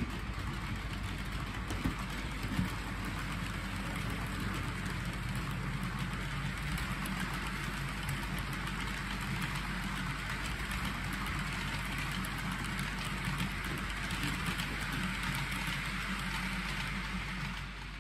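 OO gauge model train running: the locomotive's electric motor hums steadily while the TEA tank wagons' metal wheels roll along the track, with a few sharp clicks over rail joints in the first few seconds.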